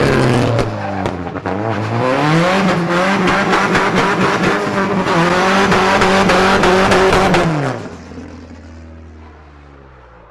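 1996 Toyota Tacoma engine revved hard: the pitch dips briefly, climbs again about two seconds in and is held high for about five seconds. It then drops away near the end and fades out.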